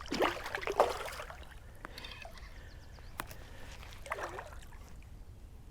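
Water splashing and dripping as a hooked largemouth-type bass is fought to the side of the small boat, with the loudest splashes in the first second and a few light clicks from tackle handling after.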